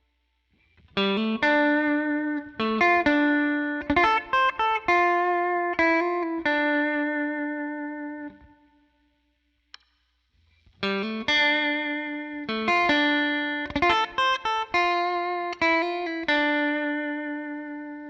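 Electric guitar with Zexcoil Legacy Signature P90-style pickups, the middle pickup in coil-cut mode, played straight into a Helix Twin Reverb amp model. Two short phrases of picked notes, one starting about a second in and one about halfway, each ending on a held note left to ring out and fade.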